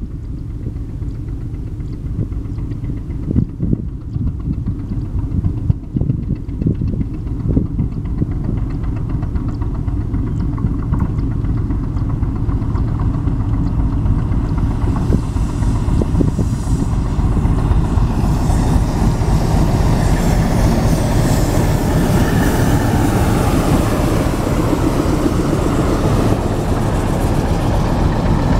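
ALU-12 diesel locomotive engine running as the locomotive approaches at a crawl, a steady low rumble that grows louder and fuller from about halfway through. A few sharp knocks sound in the first several seconds.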